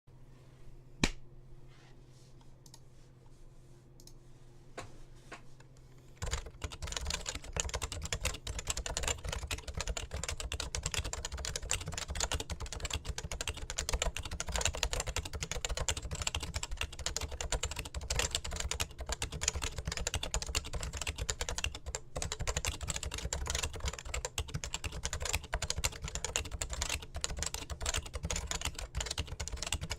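Typing on a Topre Realforce 91UDK-G keyboard with electrostatic capacitive rubber-dome switches. A few scattered key clicks, one sharp knock about a second in, then steady fast typing from about six seconds in.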